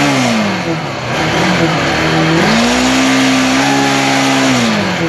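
Bajaj Pulsar NS200's single-cylinder engine revved twice. The revs drop back to idle just after the start, climb again about two seconds in, hold for about two seconds and fall back near the end. The engine is being run up to high revs to check the AC output of its repaired stator (charging coil).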